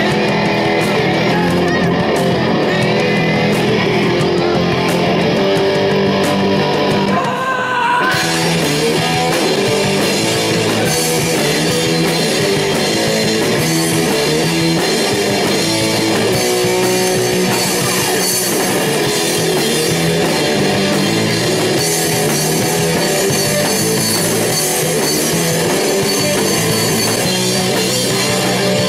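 Live rock band playing: electric guitars over a drum kit with cymbals. About eight seconds in, after a short break, the playing grows fuller and brighter and runs on at full strength.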